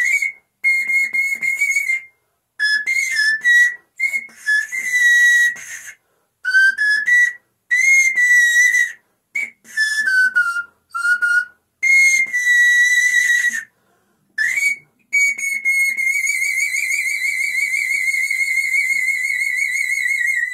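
Seven-pipe bamboo panpipe playing a melody of breathy high notes in short phrases, some sliding down in pitch, then one long note held with vibrato for about five seconds at the end.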